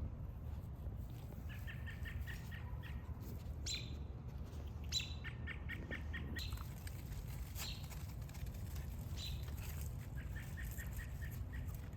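Outdoor birds chirping in several quick runs of short, high notes, over a steady low rumble.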